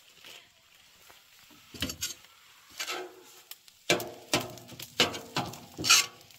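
Cookware clattering: a run of knocks and scrapes, some with a short metallic ring, starting about two seconds in and coming thicker and louder towards the end.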